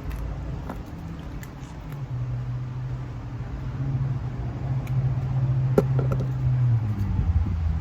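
Steady low mechanical hum, like an engine or machine running, with a few faint clicks and one sharp click about six seconds in.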